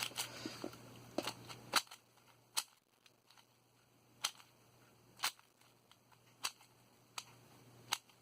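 A new QiYi Valk 3 speedcube being turned by hand: sharp clicks as layers snap into place, irregular and roughly one a second, a little quicker in the first two seconds.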